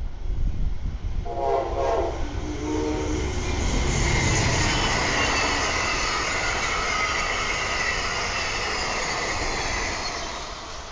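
Amtrak passenger train passing at speed. Its horn sounds a chord for about two seconds and drops in pitch as the locomotive goes by. The cars then rush past with a steady roar of wheels on rail and a high hiss, fading near the end.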